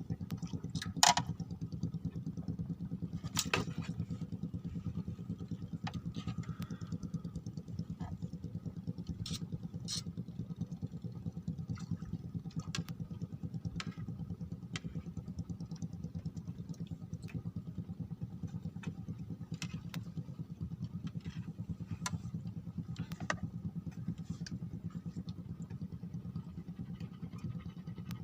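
A small engine running steadily at an even speed, with scattered sharp clicks and knocks over it, the loudest about a second in.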